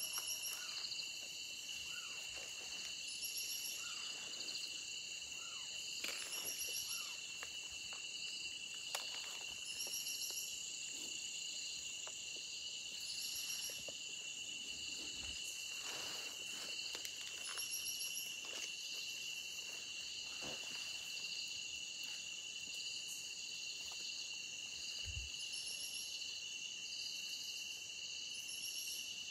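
Night insect chorus: a steady high trill with a second insect's pulsed calls repeating about every two seconds, and faint rustles now and then.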